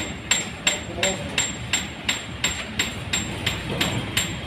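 Repeated hammer strikes in a steady, even rhythm, about three a second.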